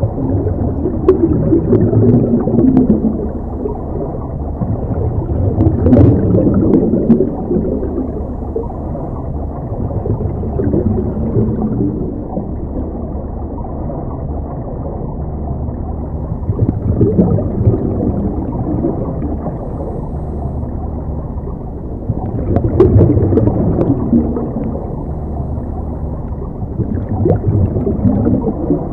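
Scuba regulator breathing heard underwater through a camera housing: muffled bubbling and rumbling that swells and fades about every five seconds as the diver breathes out.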